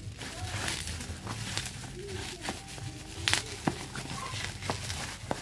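Plastic shipping bag and wrap crinkling and rustling as they are pulled off a small cardboard box, with a few sharp crackles, the loudest about three seconds in.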